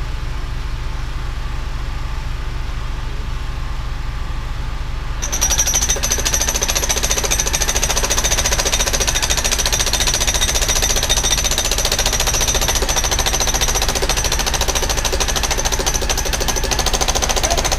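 Bobcat E32 mini excavator's engine running steadily, then about five seconds in its hydraulic breaker starts hammering in rapid strokes and keeps going, with a high metallic ring over the blows.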